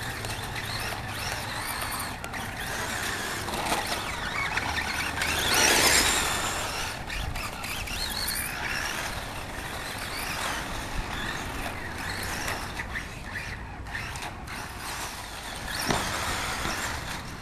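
Team Associated B4 electric RC buggy driving across the grass, its motor running and revving with the throttle, loudest about six seconds in and again near the end.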